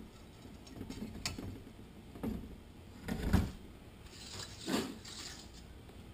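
Metal transmission parts being handled on a steel workbench: a few light clicks, a heavy metallic thud about three seconds in, and another clunk with a short scrape a second or so later.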